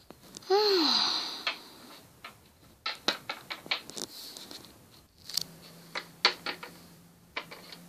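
A loud, brief swooping tone over a hiss about half a second in, then a scatter of light clicks and taps, like small plastic toy figures being moved and set down on a hard surface.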